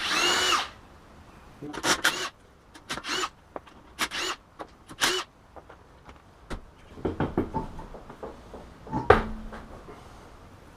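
Cordless impact driver spinning the already-loosened wheel nuts off a Subaru's front wheel in about five short bursts, each a quick rising whine with rapid hammering. Low clunks and knocks follow in the second half, with one sharp knock about nine seconds in.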